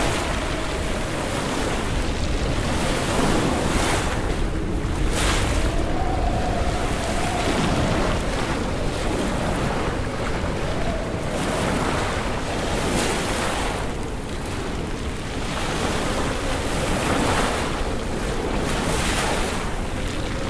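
Lake waves surging against shore ice and spraying up through ice volcanoes, with steady wind on the microphone and several louder splashing surges.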